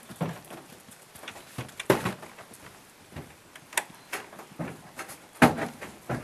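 Horse's hoofbeats at a trot on a sand arena surface: a series of dull thuds about two a second, uneven in loudness, the loudest coming near the end.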